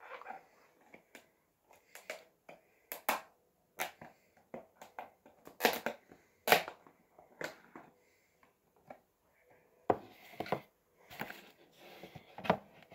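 Lid of a small animal container being worked open by hand: scattered, irregular clicks and knocks, a few louder ones near the middle.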